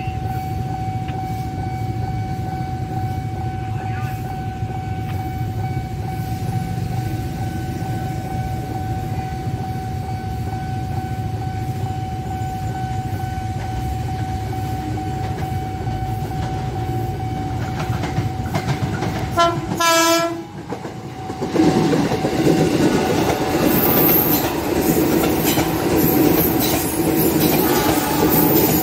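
KRL commuter electric train approaching with a low rumble and a steady high tone over it. About 20 s in the sound cuts, then a train passes close by, louder, with wheels clattering over the rails.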